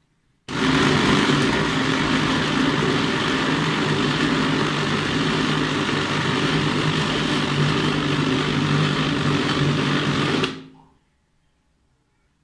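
Small electric food processor running, its blades mincing raw chicken chunks: it switches on suddenly about half a second in, runs at a steady speed for about ten seconds, then is switched off and winds down quickly.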